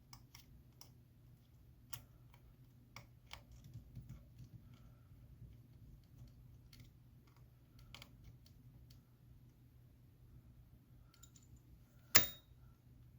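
Faint, scattered clicks of a small precision screwdriver and tiny screws against a phone's metal internal bracket, with one sharp clack near the end.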